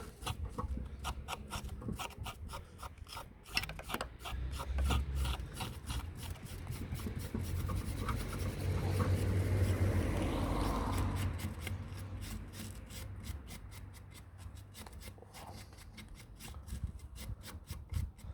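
Wire brush scrubbing rust and grime off a car's front brake caliper in quick back-and-forth strokes.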